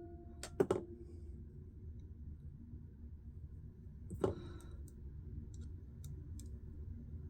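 Small wooden workbench hammer tapping a screw on a pocket knife that won't tighten: a quick cluster of three sharp knocks with a short ring, one more knock about four seconds later, then a few faint clicks.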